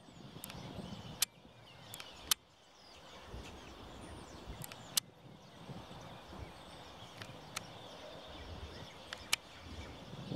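Faint low rumble of an approaching KiwiRail DL-class diesel locomotive hauling a freight train, with scattered sharp clicks.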